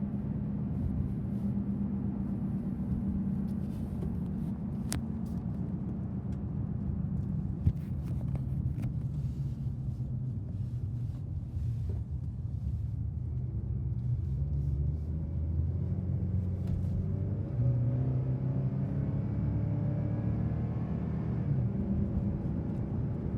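Engine and road noise inside the cab of a 2015 Chevy Colorado 4x4 pickup while driving. The engine note drops in the first few seconds and climbs again in the last few seconds as the truck accelerates. A single sharp click comes about eight seconds in.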